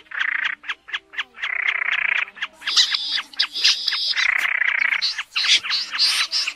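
A recording of snipe calls played as a trapping lure: rapid dry ticking, with repeated harsh, rasping calls about a second long. A faint low tone is held beneath.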